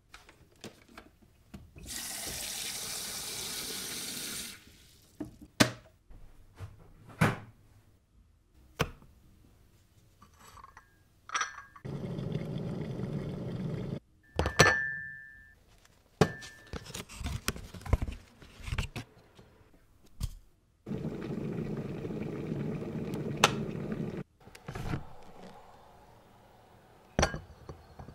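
An electric kettle being used to make tea: several few-second bursts of water rushing and rumbling, the first bright like water running into the kettle, with sharp clicks and knocks of the lid, switch and handling between them and a short steady tone about halfway through.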